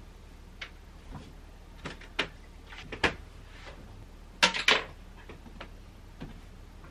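Scattered light knocks and clicks of someone moving about a small room and handling things, with two sharp knocks close together about four and a half seconds in, of the kind a cupboard door or drawer makes.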